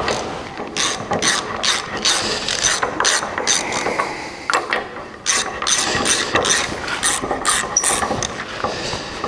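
Hand ratchet wrench clicking in quick runs as nuts are run down onto the bolts in a steel truck frame rail, with a short lull about halfway.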